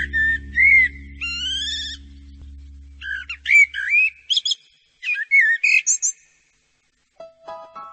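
Bird-like whistled chirps with quick rising and falling pitch glides, over a low steady hum that fades out about four seconds in. The chirps stop about six seconds in.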